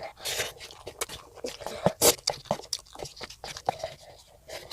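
Close-up eating sounds from a child biting and chewing food, with irregular crunches and wet mouth clicks, the loudest about two seconds in.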